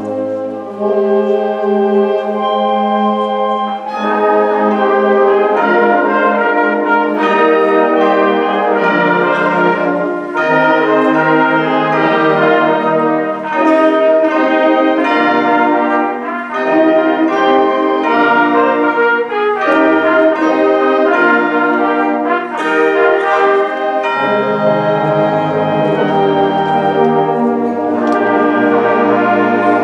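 Concert band of woodwinds and brass playing together, with held chords under a moving melody.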